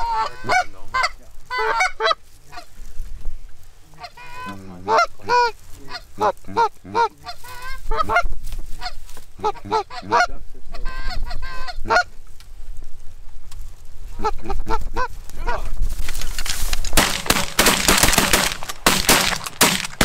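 Canada geese honking, many short overlapping calls from a flock coming in over decoys. For the last few seconds a louder dense rush of noise with rapid beats covers the calls.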